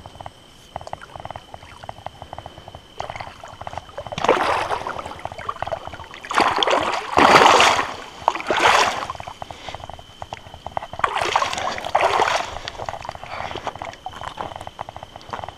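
A hooked fish thrashing and splashing in the shallows at the water's edge as it is landed: several bursts of splashing, the loudest about halfway through.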